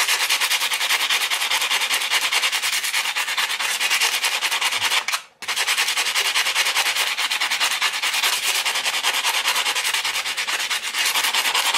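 A stainless steel knife part of a Zero Tolerance 0560 rubbed rapidly back and forth by hand on emery cloth, a steady rhythmic scratching of hand sanding that smooths rough edges and jimping. It breaks off briefly about five seconds in, then carries on.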